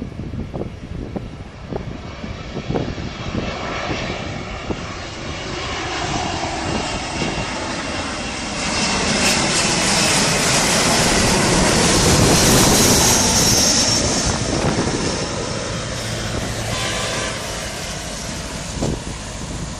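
Jet airliner landing, passing low overhead: its engine noise swells over several seconds to a peak with a high whine about halfway through, then fades away.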